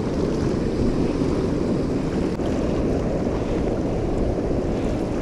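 Fast, churning water rushing down a concrete-lined channel: a steady low rush, with wind buffeting the microphone.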